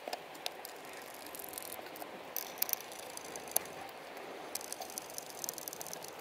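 Faint, irregular clicking and rattling of small hardware being handled while a stepper motor mount is fitted, over a steady hiss, with denser bursts of clicks in the middle and again near the end.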